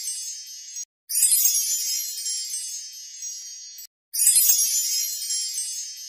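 A high, shimmering chime sound effect, like a wind chime, repeated: each sparkle starts bright and fades over about three seconds, then cuts off and starts again, once about a second in and again about four seconds in.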